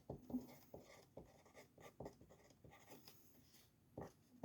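Faint, irregular scratching of handwriting, a pen or marker stroking over a surface in short strokes.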